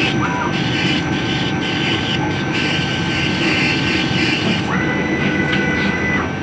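Laser cutting machine at work cutting a sticker on glass: a steady rushing machine noise. A thin steady tone comes in about five seconds in and stops just before the end.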